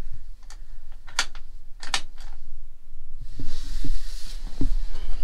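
A few sharp clicks from the dashboard switches and knobs of a 1960s Ford fire truck being worked, then rustling and dull thumps of someone moving about in the cab. A low steady rumble runs underneath.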